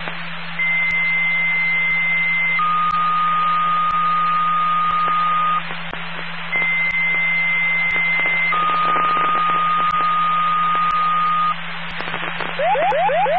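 Fire-dispatch two-tone sequential paging tones over scanner radio, sent twice: a high steady tone of about two seconds, then a lower one of about three seconds. This is the dispatcher toning out a fire company's pagers. Radio hiss and a steady hum run underneath, and near the end a rapid run of rising chirps begins.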